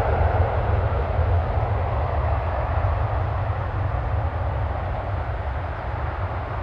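Turbofan engines of a twin rear-engined business jet rolling down the runway away from the microphone: a steady jet rush that slowly fades, over a deep rumble.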